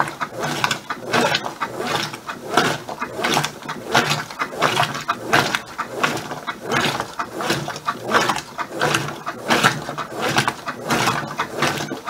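Brastemp BWK15 top-load washing machine agitating: the agitator swings back and forth through a small load of clothes in low water, each stroke a wash of sloshing water and drive noise, roughly one stroke a second. The agitation is set to the lightly soiled level.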